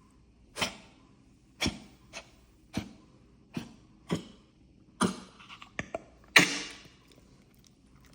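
A run of about eight short coughs, roughly one a second, with the last one the loudest and longest. A few small clicks come just before it.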